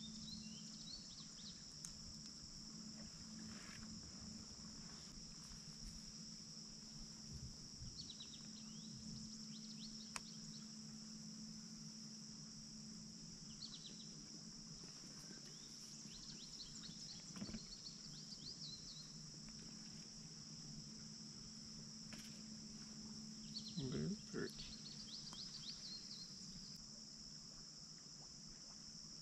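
Faint, steady high-pitched drone of a chorus of insects, with short chirps now and then. There is a brief rustle about 24 seconds in.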